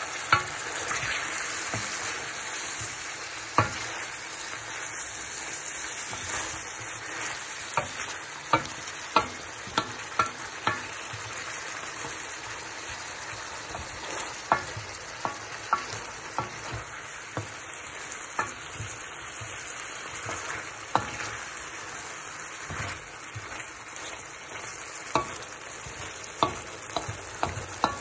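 Beef and vegetables sizzling in a hot Chinese frying pan as the meat's juice boils off and it starts to brown. Irregular sharp clacks and scrapes come from the utensil stirring against the pan.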